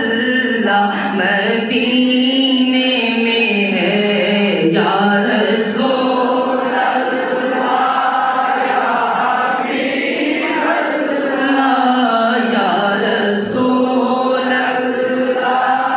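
A man singing a naat, an Islamic devotional song, into a microphone, in long held notes that bend and waver.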